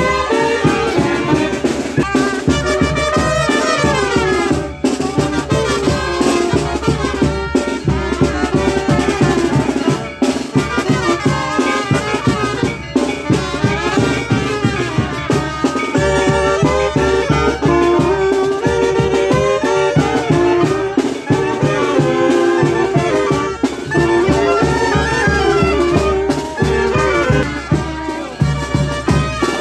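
Brass band playing a lively tune with trumpets and saxophones over a steady drum beat.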